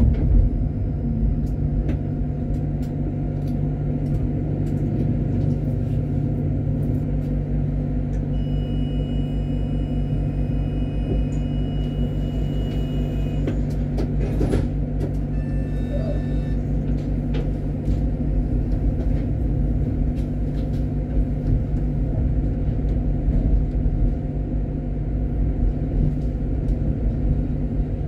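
Electric tram running along its track: a steady low rumble and hum, with scattered clicks from the rails. A thin high tone rises over it for a few seconds around the middle.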